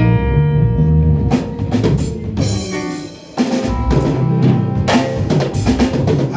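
A live church band playing, led by a drum kit with bass drum and snare strokes over bass and held instrument notes; the playing thins briefly about three seconds in, then picks up again.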